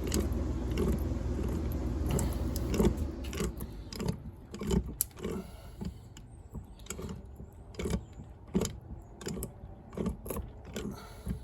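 Channellock pliers turning a threaded fitting onto a sump pump: a string of sharp clicks and knocks as the jaws grip, turn and regrip. A steady low rumble runs underneath for the first few seconds, then fades.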